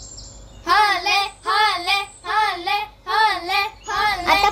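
A child's high voice chanting the same short sing-song phrase over and over, about six times in a steady rhythm, starting just under a second in.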